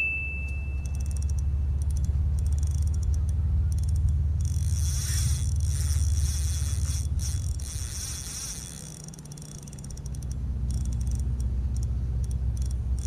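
Steady low wind rumble on an outdoor microphone, easing off for a moment about two-thirds of the way through, with a faint flickering high hiss above it.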